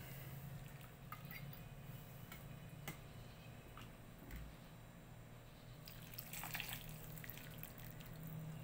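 Faint splashing and dripping of soup broth being ladled into a ceramic bowl, with a few light clicks of the ladle. The pouring is loudest about six to seven seconds in, over a steady low hum.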